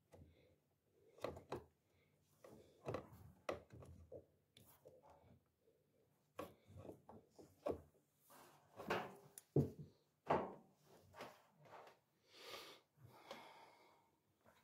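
Faint, irregular clicks, knocks and rubbing as hands work a rubber drive belt onto a tumble dryer's motor pulley and tensioner wheel, with a couple of sharper knocks about ten seconds in.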